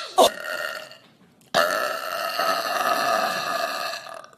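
Burps from a woman: a short burp with a falling pitch just after the start, then one long drawn-out burp held steady for about two and a half seconds that stops abruptly.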